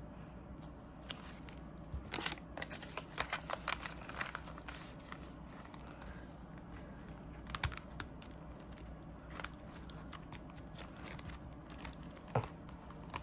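Soft crinkling and rustling of clear vinyl cash-envelope pockets and a paper bill as the bill is slid into a pocket and the pocket is handled, with scattered small clicks and taps, thickest a couple of seconds in.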